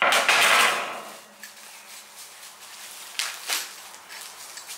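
About a second of loud rustling and tearing as packaging is wrestled open, then quieter handling with two light knocks about three seconds in.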